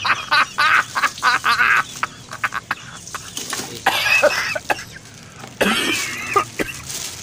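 Plastic and paper packing wrap crinkling and rustling as it is handled and pulled from a box, with a few short wordless vocal sounds from a man.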